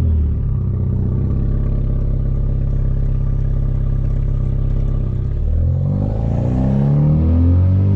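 Hyundai Veloster Turbo's turbocharged four-cylinder with a catless downpipe, droning steadily while cruising. About five seconds in, the revs begin to rise and fall as the car accelerates.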